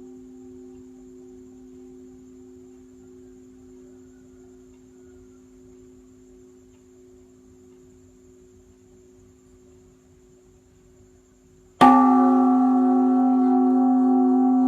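Great Buddhist temple bell (đại hồng chung) ringing: the hum of the previous stroke fades slowly, then the bell is struck again about twelve seconds in and rings on, loud and full.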